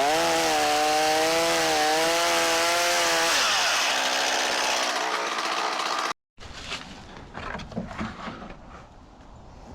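Ryobi 18-inch 38 cc two-stroke chainsaw running at high revs with a steady pitch. After about three seconds the pitch drops away into a noisier sound of the chain cutting wood. Just past the middle the sound cuts off suddenly, and quieter clicks and knocks of handling follow.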